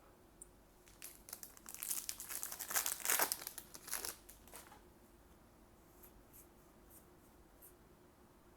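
Trading card booster pack wrapper being crinkled and torn open for about four seconds, followed by a few faint light clicks as the cards are handled.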